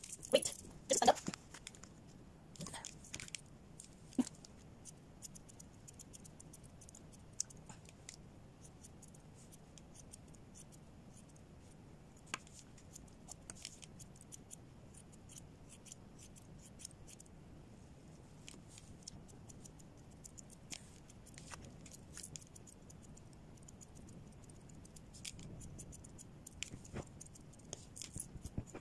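Grooming scissors snipping through a dog's thick fur: quiet, irregular snips, with a few louder clicks in the first few seconds and again near the end.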